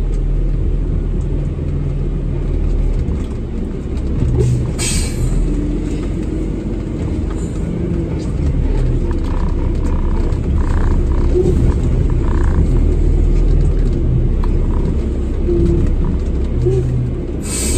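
Heavy roll-off truck's diesel engine running low and steady, heard from inside the cab as the truck creeps across a yard. A short sharp click or knock about five seconds in and again near the end.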